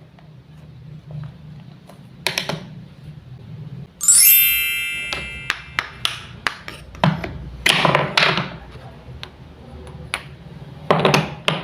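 Wooden toy food pieces knocking and clacking, with a few short scraping rasps. About four seconds in, one bright ringing ping, the loudest sound, fades away over a second or so.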